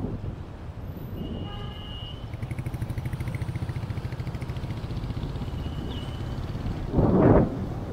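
Street traffic heard from a slowly moving car: a motorcycle engine running with an even, rapid pulse. A brief horn sounds about one and a half seconds in, and a short gust of wind noise hits the microphone about seven seconds in.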